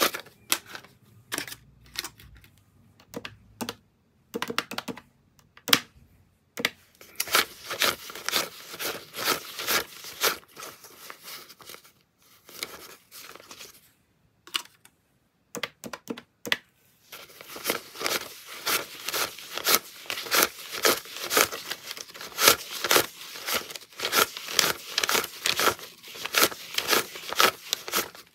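US paper banknotes counted by hand: quick runs of crisp flicks as each bill is thumbed off the stack, with short pauses between runs.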